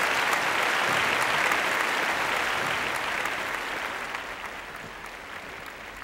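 Audience applauding, the clapping fading out over the second half.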